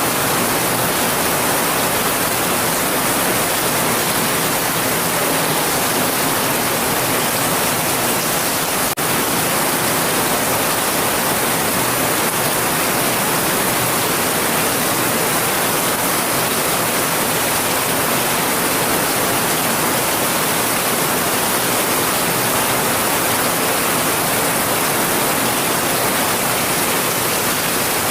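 Heavy rain falling steadily, an even, dense hiss with no individual drops standing out. It briefly dips about nine seconds in.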